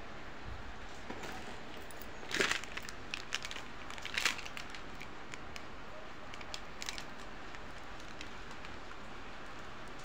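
Packaging crinkling as items are handled and lifted out of a plastic basket, with a couple of louder crackles about two and four seconds in, over a steady hiss.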